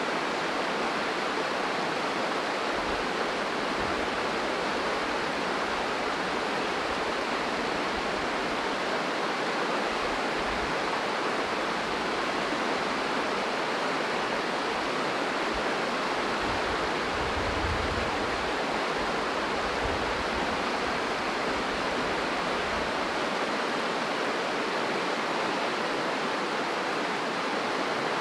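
A rushing river: the steady, even rush of fast-flowing water, with occasional low rumbles.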